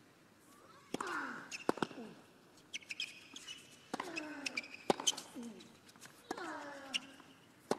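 Tennis rally on a hard court, starting about a second in: sharp racquet strikes on the ball, several of them with a player's grunt that falls in pitch, and short shoe squeaks between shots.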